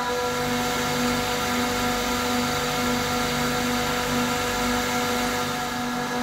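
Bitzer HSN semi-hermetic screw compressor package running: a steady machine drone with several constant whining tones on top.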